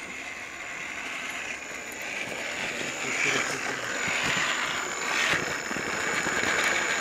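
Electric motor and geartrain of an Axial RC rock crawler whirring as it crawls over rocks, getting louder as it comes closer.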